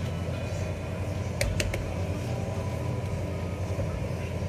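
A steady low hum, with three light taps about a second and a half in as hands press dough on a countertop.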